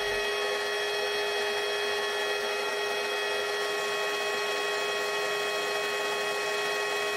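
Colchester Master 2500 metal lathe running steadily while a facing cut is taken: a constant machine whine made of several fixed tones over a rushing noise.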